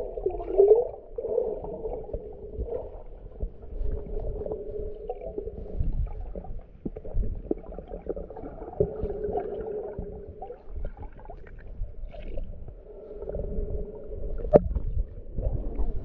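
Muffled underwater ambience heard through a submerged camera: a wavering hum with gurgles, low rumble and scattered knocks, and a sharp click about 14.5 seconds in.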